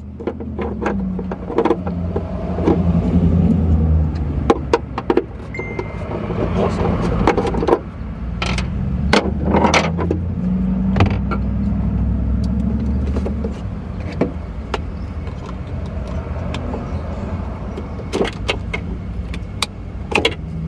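Scattered clicks and knocks of hands and a screwdriver working plastic connectors and metal while a BMW F10's fuel pump control module is unplugged and unbolted. Underneath is a loud low rumble that swells and fades twice.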